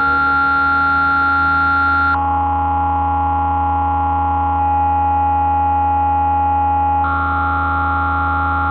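Electronic music: held synthesizer chords over a steady low drone, the chord shifting abruptly about every two seconds.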